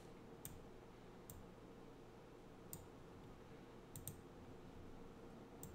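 Faint computer mouse clicks, about six of them spaced irregularly, as nodes are selected and dragged, over a low steady room hum.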